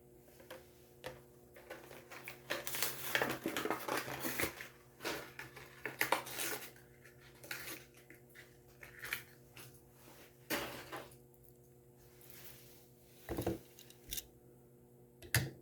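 A Hot Wheels diecast car being freed from its plastic blister card: irregular crinkling, crackling and clicking of plastic and cardboard, with a few sharper knocks near the end.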